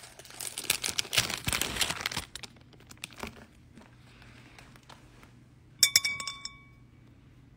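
Crinkling of packaging being handled for about two seconds, then quieter handling noise; about six seconds in, a sharp clink of a glass or metal object that rings briefly with a few clear tones.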